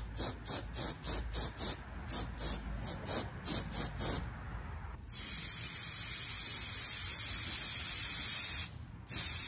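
Oxygen hissing out of a cutting torch fed by a freshly rebuilt Victor regulator. First comes a string of short puffs, about three a second, then a steady hiss. That hiss breaks off briefly near the end and then fades away as the line pressure bleeds down.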